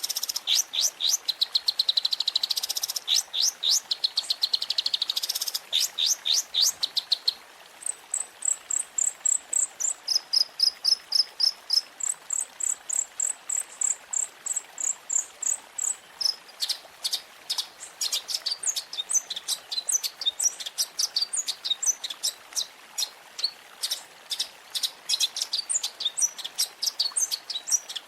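Long-tailed shrike (cendet) song with varied fill-in phrases. It opens with a fast run of rattling, downward-sweeping chirps, then turns to a string of high, thin repeated notes about 8 seconds in. From about 16 seconds in come rapid, varied chirps.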